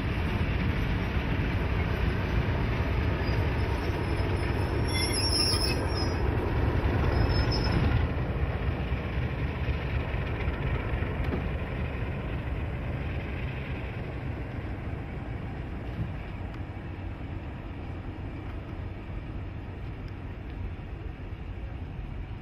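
Alco diesel locomotive rolling slowly past, its engine rumbling low, with a brief high wheel squeal about five seconds in. The rumble eases after about eight seconds and carries on more quietly.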